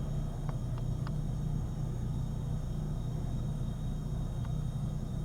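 Steady low engine rumble, even in level throughout, with a few faint short chirps about half a second to a second in and once more near the end.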